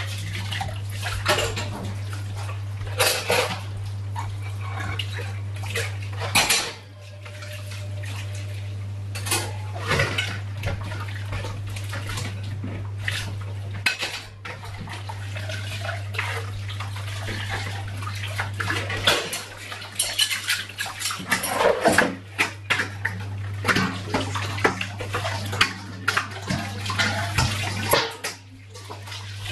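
Dishes being washed by hand in a stainless steel sink: a steel bowl and utensils clattering and knocking against the sink again and again, with tap water running. A steady low hum sits underneath.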